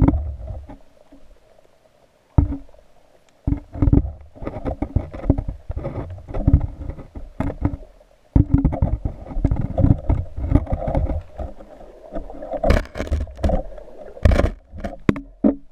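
Muffled underwater rumbling and sloshing of water around a camera housing just below the surface, coming in irregular surges with short lulls, and a few sharp clicks or knocks near the end.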